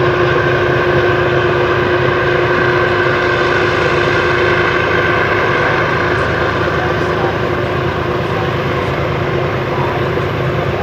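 Train rolling past close by: a loud, steady rumble of wheels on rail with a few steady tones running through it, easing off slightly in the second half.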